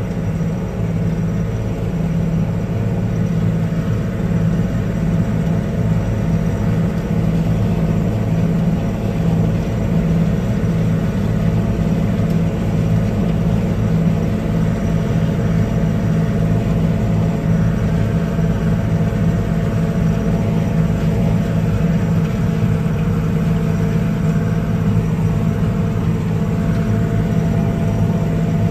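Farm tractor's diesel engine running steadily with a flail harvesting implement chewing through corn behind it: a constant, even drone.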